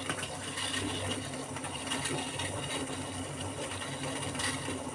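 Water at a rolling boil in a saucepan over a high gas flame, bubbling steadily.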